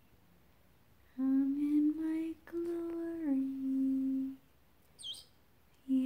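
A woman humming softly in a few long held notes, stepping down in pitch for the last one. About five seconds in comes a brief high chirp from a parrot.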